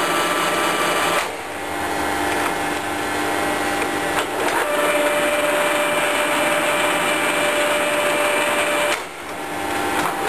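Colchester Mascot lathe's geared headstock and spindle running with a steady gear whine. About a second in and again near the end the sound dips briefly and comes back on a different whine as the spindle speed is changed, with a click about four seconds in. The owner says none of the gears are bad.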